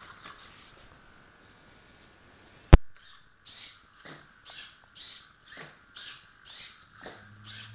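Hobby servo motors of a homemade legged robot whirring in short, even bursts about twice a second as its legs step, after one sharp click a little under three seconds in.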